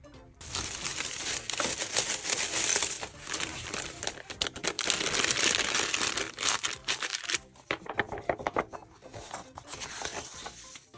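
A clear plastic bag crumpled and squeezed between the hands: dense crinkling that thins to scattered crackles after about seven seconds.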